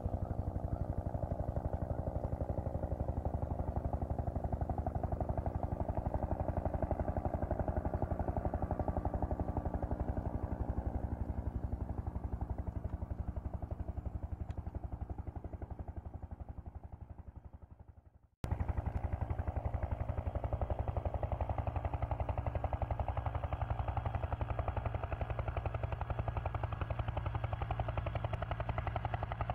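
Steady mechanical droning with a fast pulse, like an aircraft rotor. It fades away a little past halfway, then cuts back in suddenly at full level.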